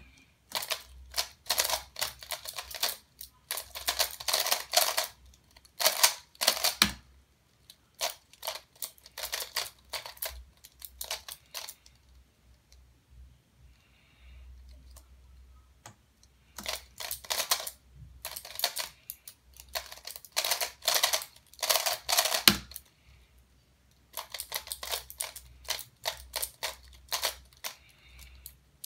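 Aoyan Skewb speed puzzle being turned fast by hand: bursts of rapid plastic clicking and clacking a few seconds long, broken by short pauses.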